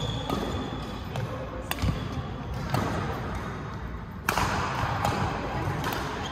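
Badminton rackets hitting a shuttlecock during play: a series of sharp, irregularly spaced knocks, the loudest about four seconds in.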